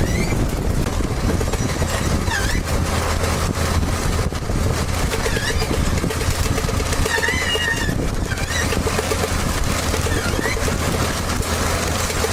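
A heavy machine's engine running steadily under a dense clatter, with short, wavering high-pitched squeals coming and going about every few seconds.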